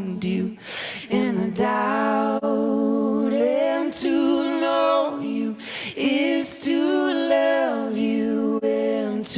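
Unaccompanied solo voice singing a slow worship song, with long held notes that slide between pitches and brief breaths between phrases.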